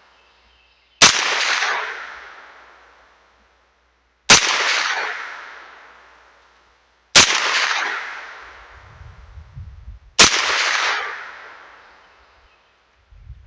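Four single shots from a Bear Creek Arsenal BC9 Bufferless 9mm carbine, fired at an even, deliberate pace about three seconds apart, each followed by a long fading echo.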